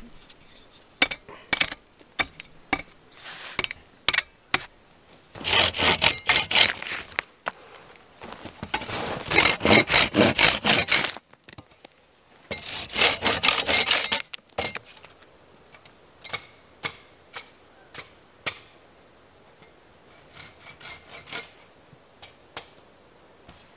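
Folding hand saw worked back and forth along a wooden pole, rasping off branch stubs and bark to smooth it. There are three runs of quick strokes a few seconds each, with scattered single clicks and knocks before and after.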